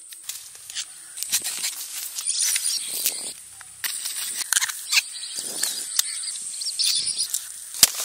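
A machete chopping and slicing into fibrous palm fruit and palm-leaf stalks: a run of sharp cuts and crunches at uneven intervals. Under the cuts is a steady, high insect drone.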